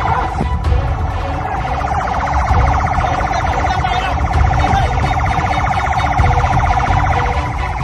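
A patrol boat's siren sounding at a steady pitch with a rapid flutter, over a low rumble of engine and wind.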